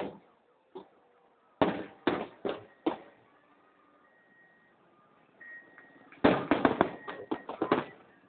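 Fireworks shells bursting: a loud bang at the start, a run of four bangs around two seconds in, then a quick cluster of overlapping bangs and crackles from about six seconds in until near the end.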